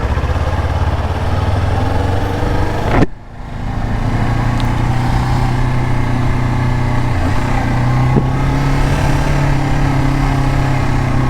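Kawasaki Ninja 400's parallel-twin engine running at low speed, with a brief sharp rise and sudden drop in the sound about three seconds in, then running steadily again.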